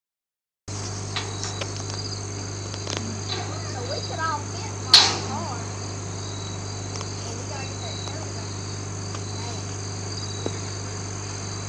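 Crickets chirring steadily over a low steady hum, with one sharp clank about five seconds in that rings briefly and is the loudest sound.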